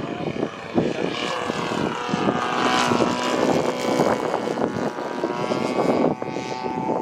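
DLE 40cc twin-cylinder boxer gasoline engine of a large radio-controlled Extra 300 aerobatic plane in flight, its stock barrel mufflers fitted with silencers. The engine note rises and falls in pitch as the plane manoeuvres.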